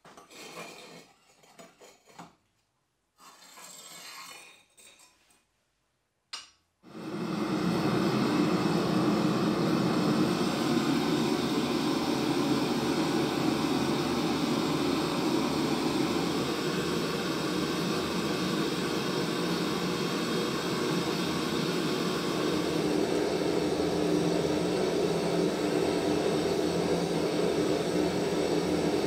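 A few short scrapes and clinks of a firebrick being set at a forge opening. About seven seconds in, a two-burner gas forge starts up and runs steadily, a loud, even rushing sound that continues to the end.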